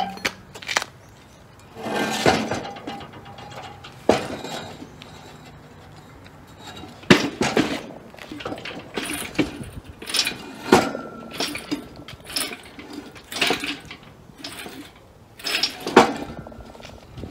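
Irregular metal clanks and knocks, some with a short ring, with chain rattling, as the 1953 Chevrolet's torque tube and rear axle are shifted about on an engine hoist chain.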